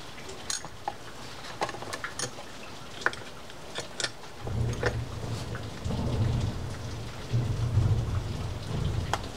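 Scattered light metallic clicks and taps as a Penn Senator 4/0 reel's side plate and frame are handled and fitted together. About halfway through, a low rumble of handling noise joins the taps.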